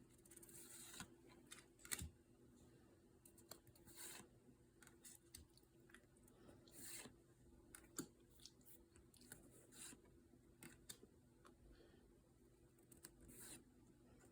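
Faint, irregular rustles, clicks and short swishes of Pokémon trading cards being handled and slid across one another.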